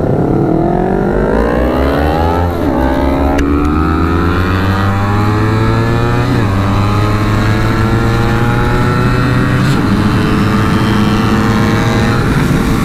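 Honda CBR250RR's parallel-twin engine accelerating hard through the gears. Its rising note drops with each of several quick upshifts, under wind rush.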